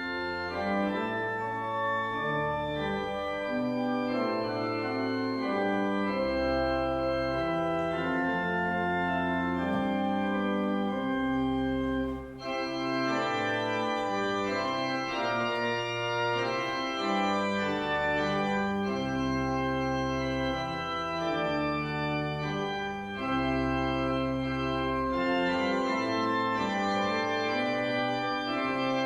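Organ playing a slow piece in sustained chords over held bass notes, with a brief break about twelve seconds in.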